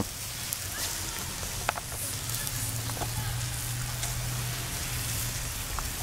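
Sausages sizzling in a wire grill basket over hot charcoal, a steady hiss with a few sharp crackles as fat drips onto the coals.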